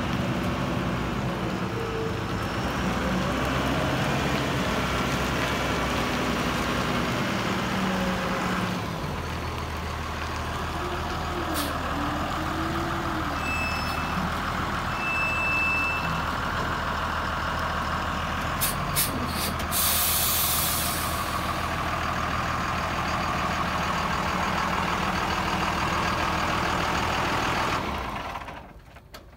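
Gradall G3WD wheeled hydraulic excavator's engine running steadily, its note changing about nine seconds in. A few clicks and a short burst of air hiss come about two-thirds of the way through, and the engine sound cuts off near the end.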